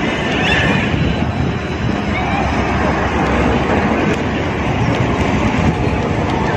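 Steady, loud rumbling rush of noise with no clear tone, flickering constantly in the low end.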